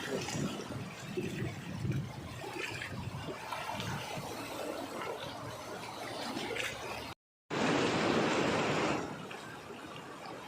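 Water washing and splashing at the shoreline, a steady rush with small surges; after a brief dropout about seven seconds in, the water is louder for a second or so, then quieter again.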